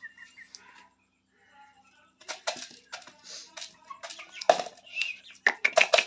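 Young aseel chickens flapping their wings and scuffling, in loud irregular strokes from about two seconds in that quicken into rapid flapping near the end.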